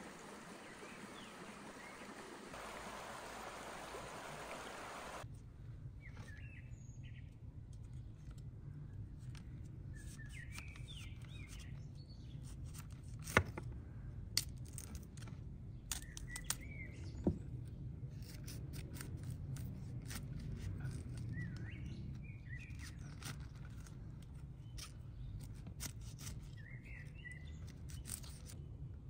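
Water running in a small stream, which stops abruptly about five seconds in. Then come birds chirping now and then over a low steady hum, with crisp snaps and clicks of a knife cutting the leaves and stalk off a head of cauliflower.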